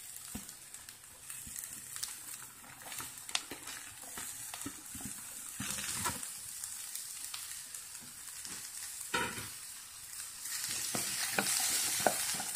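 Diced carrots and green beans sizzling as they hit hot oil in a frying pan, with a wooden spatula scraping and tapping against the pan as they are stirred. The sizzle grows louder near the end as the stirring picks up.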